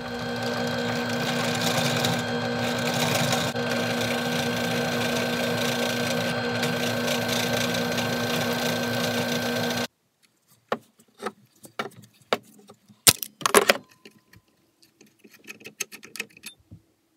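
Drill press running steadily as it drills out the rivet holding the gas piston, stopping abruptly about ten seconds in. Scattered metallic clicks and knocks follow, with a few louder sharp knocks about three seconds later.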